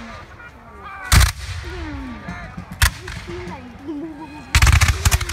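Black-powder flintlock muskets firing: a single sharp shot about a second in, another just before three seconds, then a ragged volley of many muskets going off together near the end.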